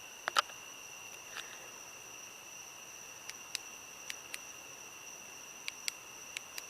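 Night insects holding a steady, high, continuous trill, with a scattering of short sharp clicks, several of them in close pairs and the loudest about half a second in.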